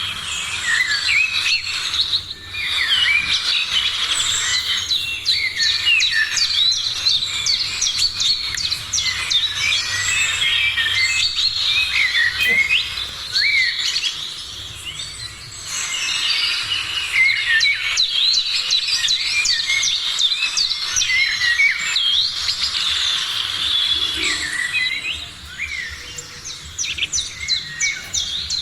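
A chorus of many small birds chirping and singing at once, with dense, overlapping quick notes throughout, thinning briefly about halfway through and again near the end.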